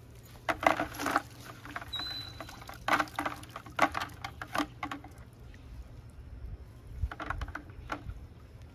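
A wet cast net being gathered and loaded by hand: the lead weights along its edge click and rattle in several short clusters, and water patters from the mesh.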